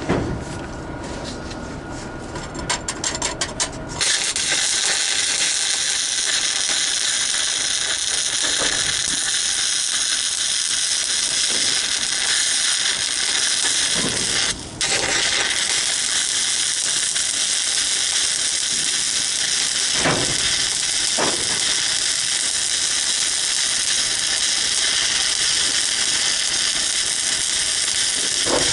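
Stick (shielded metal arc) welding: after a few seconds of scratchy clicks as the electrode is struck, the arc settles into a steady crackling sizzle. It breaks off for an instant about halfway through and restrikes at once.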